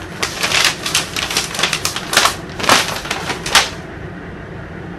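Folded sheet of lined notebook paper crinkling and crackling as it is unfolded by hand. The crackling stops about three and a half seconds in.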